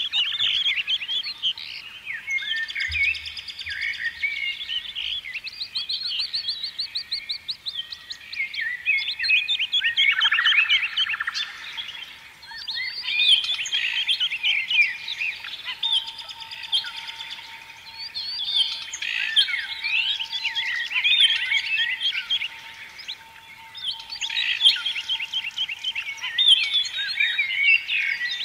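A dense chorus of small songbirds chirping and twittering without pause, many quick rising and falling calls overlapping.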